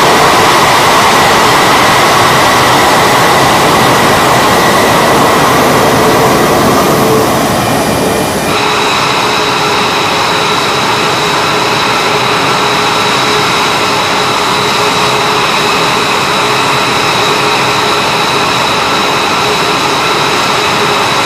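F-22 Raptor's twin Pratt & Whitney F119 turbofan engines running at idle while the jet sits parked: a loud, steady rush with several high whining tones. The whine changes pitch abruptly about eight seconds in.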